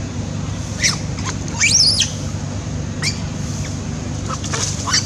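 Young long-tailed macaque squealing in distress as another monkey grabs at it over food: several short high squeals, with one louder, longer scream that rises and falls about two seconds in. A steady low hum runs underneath.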